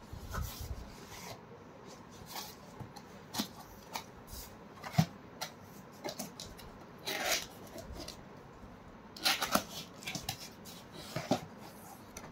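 Hands handling and opening a cardboard box and its packaging: irregular rustling, scraping and sharp clicks, with the loudest click about five seconds in and bursts of rustling around seven and nine seconds.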